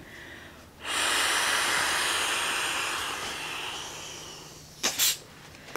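A person blowing one long breath through the screw valve of an inflatable hiking pillow: a rush of air that starts about a second in and fades out over some three and a half seconds. About a second later comes a brief rush of air.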